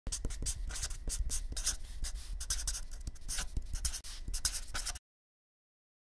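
Pen-on-paper writing sound effect: quick, irregular scratchy strokes with a low rumble beneath, like a word being handwritten, for about five seconds before cutting off suddenly into silence.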